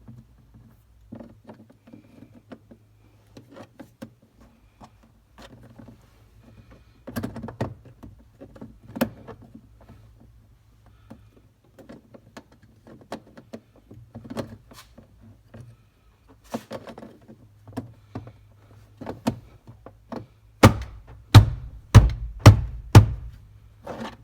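Plastic front door-lock bezel of a Jeep Wrangler being worked into its opening in the door: scattered light clicks and knocks of handling, then about five loud knocks in quick succession near the end as it is forced into place.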